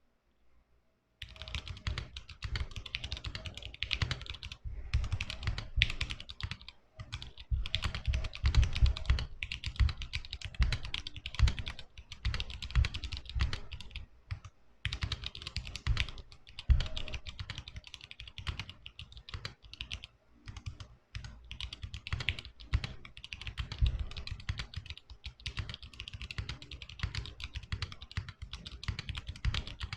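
Custom mechanical keyboard being typed on quickly: KBDfans T1 tactile switches under PBT keycaps in an aluminium case, giving a steady run of deep clacks that starts about a second in, with a few brief pauses.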